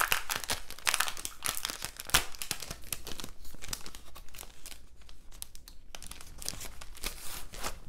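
Crinkling and rustling of a thin, hole-punched plastic planner dashboard sheet as it is handled and flexed, with a run of sharp crackles that eases off about halfway through before picking up again.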